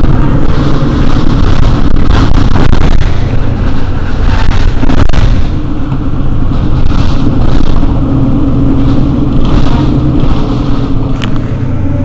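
Mercedes-Benz Citaro city bus engine running loudly and steadily, easing off a little about five and a half seconds in.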